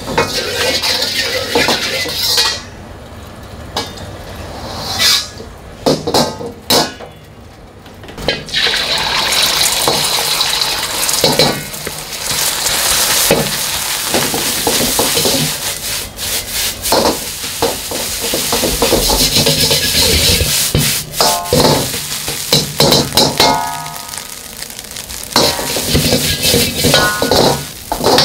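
Fried rice cooking in a wok: hot oil sizzling, then a louder steady sizzle about a third of the way in as egg and rice fry together. A metal ladle repeatedly clanks and scrapes against the wok as the rice is stirred and turned.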